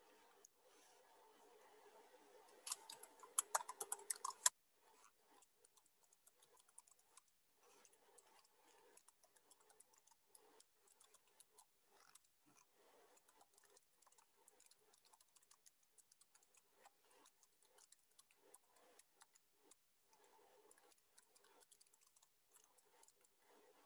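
Faint, irregular tapping of computer keys, with a louder quick run of clicks about three to four seconds in.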